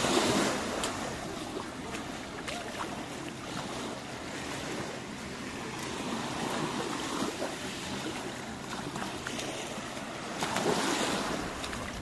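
Small waves washing up onto a sandy beach at the water's edge, an even hiss that swells louder at the start and again near the end.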